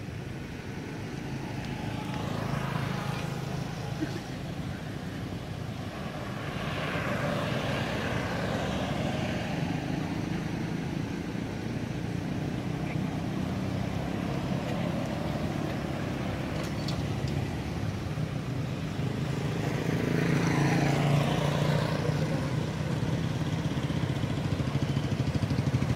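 Road traffic: vehicles passing one after another, the noise swelling and fading about three times over a steady low rumble.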